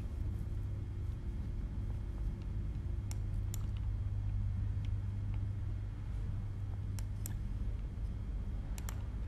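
Screwdriver tightening the screws that hold a 3D printer's extruder in place, giving a few light clicks and taps of metal on the carriage, twice in quick succession near the end, over a steady low hum.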